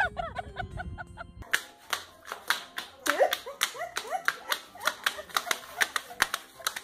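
Hard clacking on a tile floor as a small dog wearing shoes shuffles about, several irregular clacks a second.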